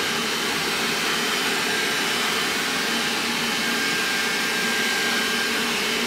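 Xiaomi Roborock S5 robot vacuum running: a steady whirr of its suction fan and brushes, with a faint high whine held at one pitch.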